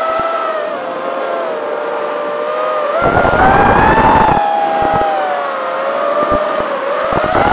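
FPV racing quadcopter's brushless motors and propellers whining, the pitch rising and falling as the throttle changes, heard from on board. About three seconds in the whine climbs and a rumbling buffet of noise lasts for about a second and a half.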